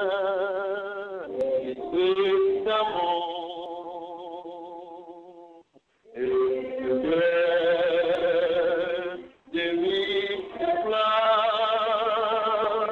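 A man singing a slow hymn unaccompanied, holding long notes with vibrato and breaking off twice for a breath.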